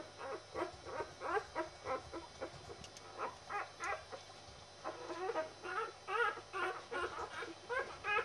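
Litter of four-day-old puppies whimpering and squeaking: a rapid, continuous run of short high calls, about three or four a second.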